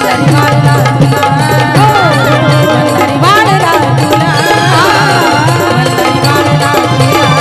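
Marathi folk band playing an instrumental passage: a dholki drum beats a steady, driving rhythm under a melody line full of slides and ornaments.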